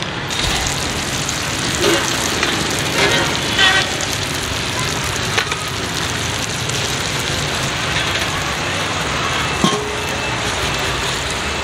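Steady hiss at a street cooking stall, the kind a gas burner under a pot of boiling corn and passing traffic make together, with brief snatches of voices. Near the end a metal clink rings briefly as tongs strike the steel pot.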